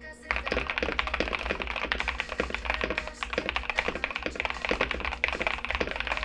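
Typing on a KBD67 Lite mechanical keyboard fitted with lubed TTC Carrot switches: a quick, steady run of keystrokes that starts just after the beginning.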